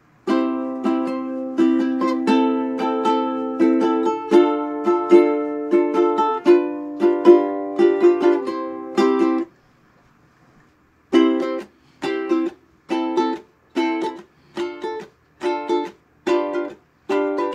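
Ukulele being strummed: a run of chords for about nine seconds, then, after a short pause, short clipped chords struck about twice a second.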